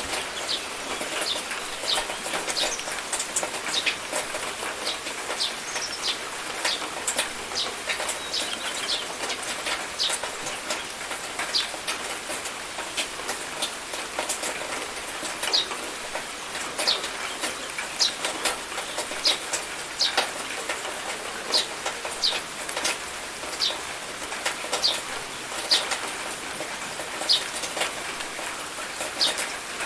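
Rain falling steadily: an even hiss with many sharp, irregular ticks of drops splashing close by.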